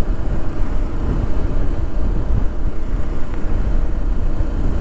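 Motorcycle on the move: wind buffeting the microphone over a low engine and road rumble, loud and unsteady.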